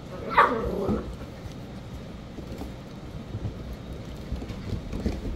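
A litter of dachshund puppies rough-housing: one puppy gives a short, wavering cry about half a second in, then low scuffling and faint clicks as they wrestle.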